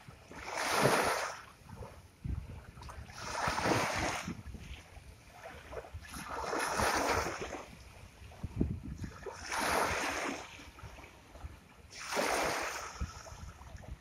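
Ocean surf: small waves breaking and washing ashore in a slow rhythm, five rushes of water about every three seconds.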